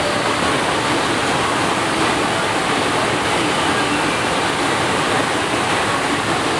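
Steady rush of water from a FlowRider sheet-wave surf machine, its pumped water streaming continuously over the ride surface.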